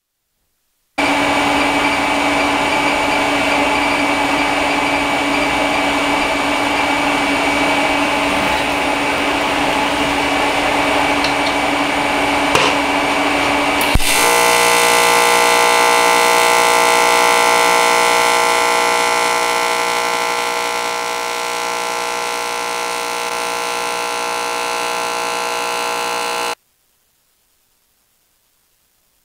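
AC TIG welding arc on aluminum buzzing steadily. The arc starts abruptly about a second in and cuts off abruptly near the end. Halfway through, the buzz changes suddenly to a cleaner, evenly pitched hum, which eases slightly a few seconds later.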